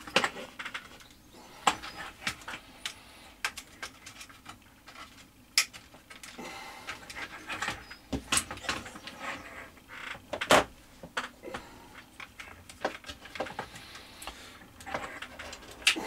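Irregular clicks, taps and light knocks of small metal parts, long-nose pliers and the plastic radio-transmitter case being handled while an antenna connector is fitted. The loudest is a sharp knock about ten and a half seconds in.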